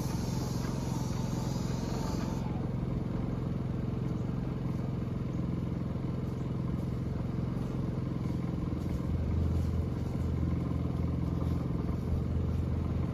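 Small portable generator engine running steadily under the load of an airless paint sprayer. A high spray hiss from the sprayer gun stops about two seconds in, and a deeper hum comes and goes from about nine seconds in.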